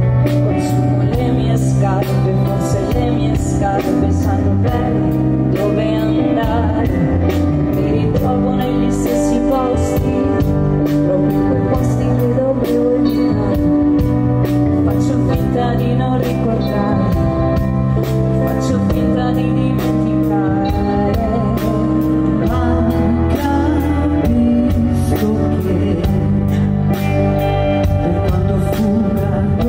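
Live pop band playing an Italian pop song: piano and keyboards, electric guitars, bass and a steady drum beat, with women singing.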